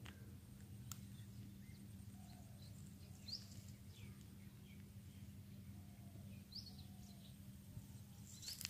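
Quiet outdoor background with a steady low hum and a few faint bird chirps, including two short falling calls about three and six and a half seconds in.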